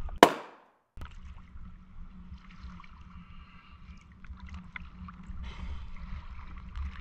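Small waves lapping and sloshing against a camera held at the water's surface, over a steady low rumble. A brief loud burst comes just after the start and cuts off into a moment of silence.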